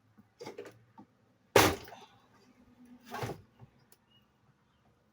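Objects being handled: a few light knocks, then one sharp, loud knock about a second and a half in and a second, duller knock about three seconds in.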